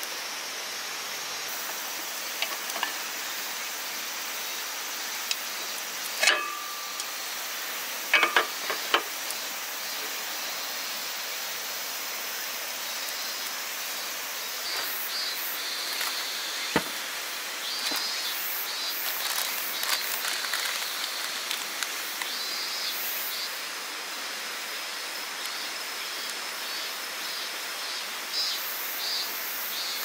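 Steady rush of water. A few sharp clicks come about six seconds in and again around eight to nine seconds, and intermittent high chirping runs through the second half.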